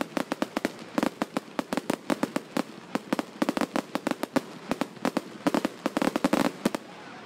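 Aerial fireworks going off in a rapid string of sharp bangs and crackles, many a second, that stops abruptly shortly before the end.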